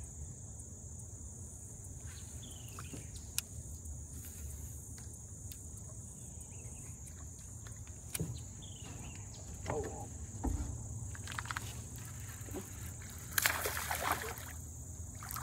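Steady high-pitched drone of insects calling around the pond, with a low rumble underneath and scattered small clicks and handling noises from baitcasting rod and reel work in the boat. A brief rush of noise near the end is the loudest moment.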